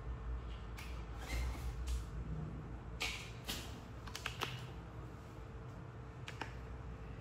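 Hands working on skin during a body massage: a few brief rubbing strokes and several sharp slaps or pats, over a steady low room hum.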